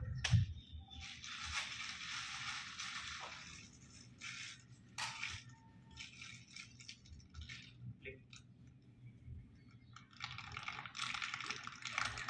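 A sheet of paper crumpled and worked between the hands to make a crackling rustle, a Foley imitation of burning wood. It comes in irregular spells with short gaps: a longer one near the start and another near the end.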